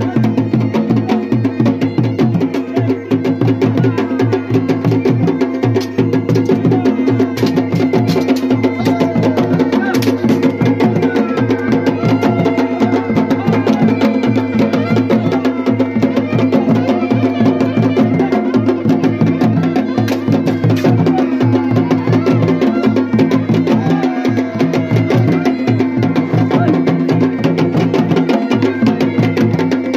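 Kumaoni wedding band music: dhol and damau drums beaten in a fast, dense rhythm under the steady drone and melody of a masakbeen bagpipe.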